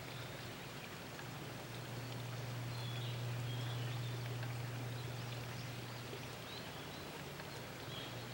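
Outdoor ambience: a steady low hum under an even haze of noise, with a few faint, short bird chirps.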